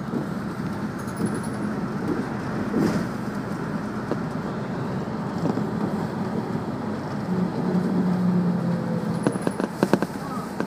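City bus engine running with steady road noise, heard inside the passenger cabin; the engine note grows stronger for a moment past the middle, and a fast burst of rattling clicks comes near the end.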